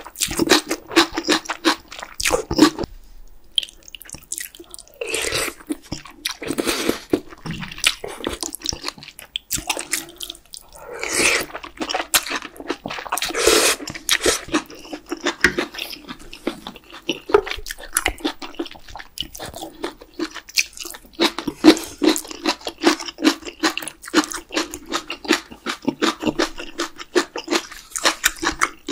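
Close-up eating of spicy beef brisket soup with noodles: wet chewing and biting throughout, with several longer slurps of noodles and broth in the first half.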